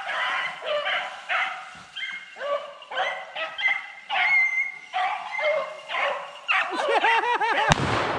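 Pack of beagles baying while running a rabbit, several voices overlapping in long bending calls. Near the end one dog breaks into quick, rising-and-falling yelps, about five a second, and a knock and low wind rumble hit the microphone.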